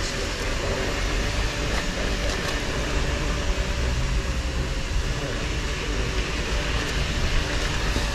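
Steady mechanical hum, like a running engine or machine, holding a constant tone over a low rumble.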